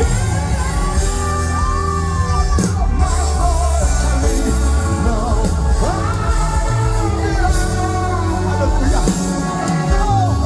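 Live worship band music with a voice singing long, wavering held notes over steady bass and sustained chords.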